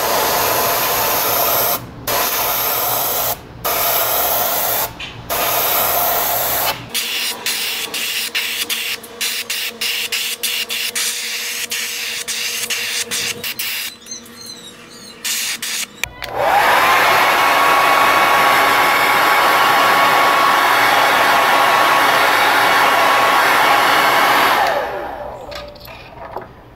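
Airbrush spraying paint onto a wooden lure: hissing compressed air in bursts, broken by short gaps as the trigger is let off, then a long unbroken hiss of about eight seconds in the second half that fades out near the end.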